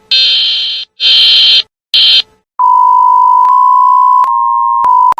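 Electronic emergency-alert alarm: three loud, harsh buzzing bursts, then from about two and a half seconds in a steady beeping tone that steps slightly in pitch, as in a mock Emergency Alert System broadcast.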